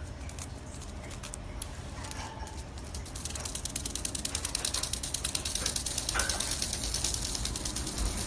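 A fast, even rattle of clicks, starting about three seconds in and getting louder.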